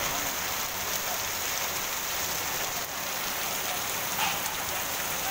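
Torrential rain falling steadily, an even hiss of drops pattering on the wet street and surfaces.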